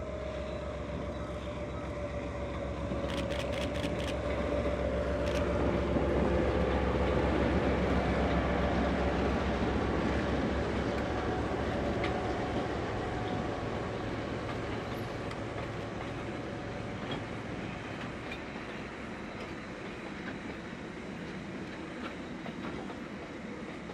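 Train passing by, building to its loudest about a third of the way in and then slowly fading. A steady tone slides gently down in pitch near the start.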